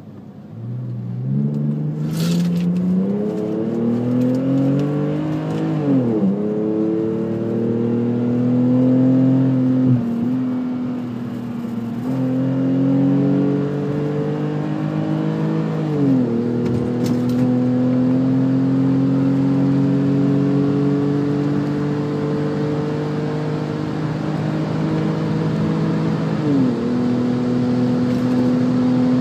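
BMW E39 520i's M54 straight-six exhaust, straight-piped in stainless steel with the mufflers deleted and two resonators, pulling through the gears. The note climbs steadily and then drops at each of three upshifts, about ten seconds apart, before settling into a steady cruise near the end.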